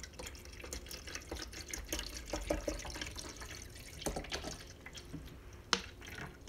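Water poured from a plastic water bottle into a Keurig coffee maker's plastic water reservoir, splashing and glugging unevenly, with a sharp click near the end.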